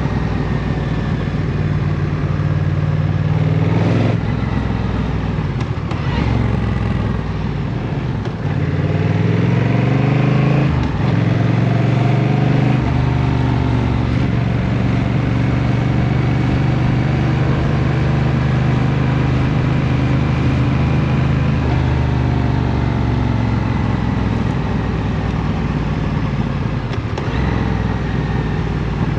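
Honda CMX1100 Rebel's parallel-twin engine on the move: its pitch climbs and drops back several times in the first dozen seconds as the bike accelerates through the gears, then holds steady at a cruise. Its pitch falls as the bike slows in the mid-twenties, and it picks up again near the end.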